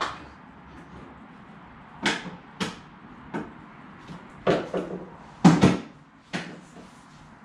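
Clunks and knocks of a restored Vespa PX scooter being handled by hand: a series of separate bumps, about two a second in places, the loudest a quick double clunk about five and a half seconds in.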